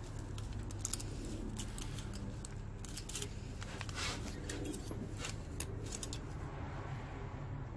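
Hand tools clicking and scraping against the rocker arms and valve train of a Honda 3.2L V6 with the valve cover off: a string of sharp, irregular metallic clicks over a steady low hum.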